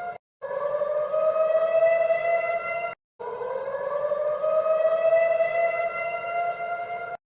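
Emergency alert siren sounding a loud wail whose pitch climbs over two to four seconds and then levels off. It cuts off abruptly into a split second of silence and restarts low each time, breaking off three times.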